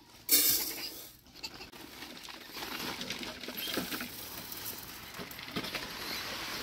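Dry grain pattering and rattling against a metal pot as it is scooped and poured with a plastic cup, a short sharp rattle about half a second in, then a steady spray of small ticks.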